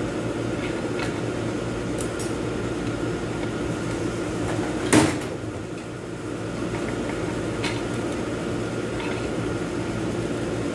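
Metal clicks and scrapes from a screwdriver prying out the underdrive clutch pack of an automatic transmission, with one sharp metallic clank about five seconds in, over a steady workshop hum.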